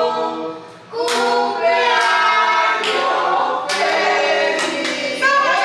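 A small group of people singing the Spanish birthday song together without accompaniment, with a short breath-pause just under a second in before the next line.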